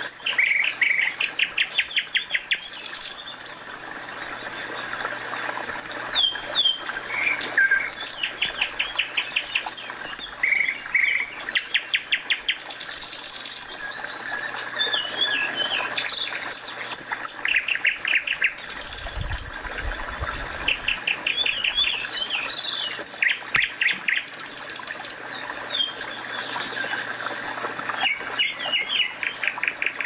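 Several songbirds singing in woodland: many short high chirps and rapid trills, one phrase after another, over a steady background hiss, with a brief low rumble about two-thirds of the way in.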